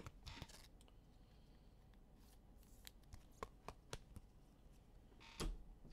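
Faint handling of trading cards: soft slides and small clicks as cards are flipped through, with one louder tap near the end.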